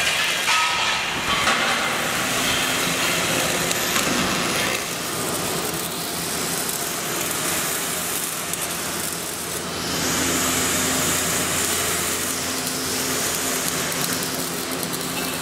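Metal grinding with a power grinder on steel: a steady hissing noise with a low hum beneath, a little louder from about ten seconds in.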